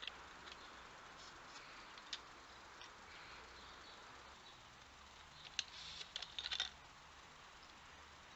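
A red fox foraging at a pipe feeder, making scattered faint clicks and crackles, with a quick run of louder clicks between about five and a half and seven seconds in, over a steady faint hiss.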